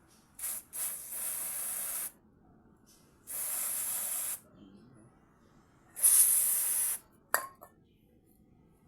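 Aerosol brake cleaner hissing from the can in bursts as it is sprayed onto a dirty, oily MAP sensor. Two quick puffs come first, then three sprays of about a second each, the last one loudest. A brief sharp sound follows near the end.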